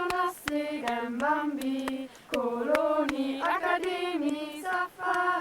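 A group of children singing together in unison, holding and sliding between sung notes, with short sharp knocks here and there.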